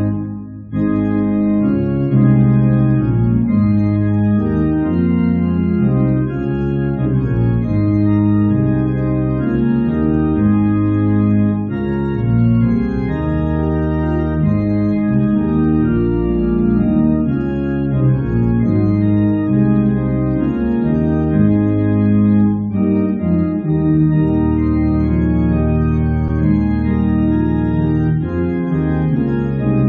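Organ playing an Easter hymn in full held chords, with a short break about half a second in.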